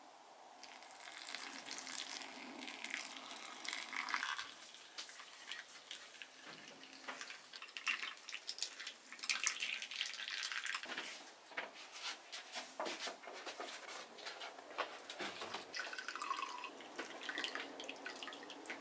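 Pour-over coffee brewing: liquid trickles and drips through a paper filter into a glass server, with many small drip clicks. Near the end, brewed coffee is poured from the glass server into a ceramic mug.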